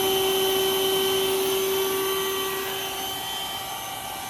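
Electric air pump running with a steady whine as it inflates a chamber of an inflatable dinghy; the whine eases off a little near the end.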